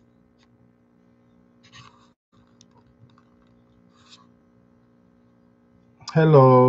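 Faint rustles and light clicks of materials being handled on a desk over a low steady hum; about six seconds in, a man's voice starts loudly with a drawn-out greeting.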